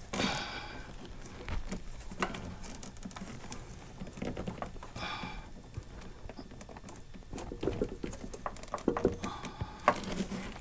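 Scattered light clicks, knocks and scrapes as a cylinder head is worked into place on the engine block, busier and a little louder in the second half.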